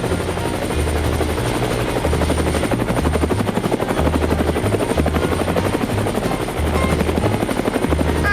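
Fast, steady mechanical pulsing, like a machine running, over a low bass line that steps between two notes about every half second.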